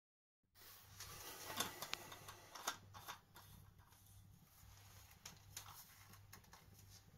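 Faint clicks and scrapes of the cap being screwed onto a metal vacuum flask, a handful of sharp ticks in the first few seconds, over a steady low hum.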